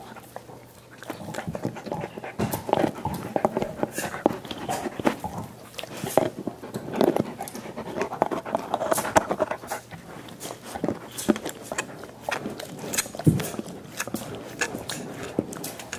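Dogs gnawing and slurping at soup bones: continual wet sucking and licking noises broken by many irregular sharp clicks.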